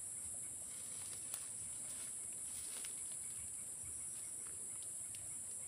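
Insects, crickets or cicadas, making a steady, high-pitched drone, with a few faint snaps and rustles as leafy vines are pulled up by hand.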